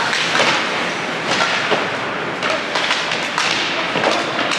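Ice hockey play: skate blades scraping the ice under scattered, irregular sharp clacks and thuds of sticks and puck.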